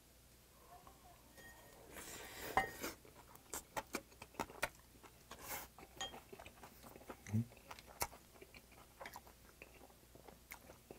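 A person chewing a mouthful of oyster rice, with wet mouth clicks and smacks starting about two seconds in. Now and then chopsticks tap and scrape a ceramic rice bowl.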